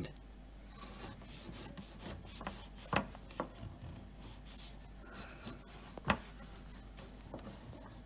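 A cloth being rubbed and wiped around inside the plastic drain-pump filter housing of a Beko washing machine: faint rubbing, with a few sharp knocks, the loudest about three seconds and six seconds in.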